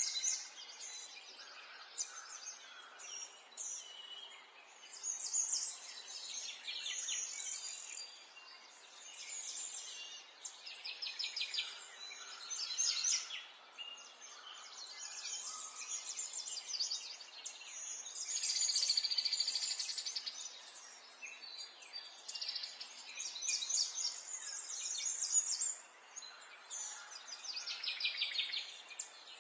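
Several songbirds singing and chirping at once, with overlapping trills and quick stuttering notes, over faint background hiss.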